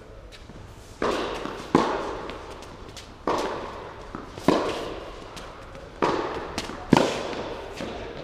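Tennis rally on an indoor court: about six sharp pops of racket strings hitting the ball and the ball bouncing, each ringing out in the hall's echo.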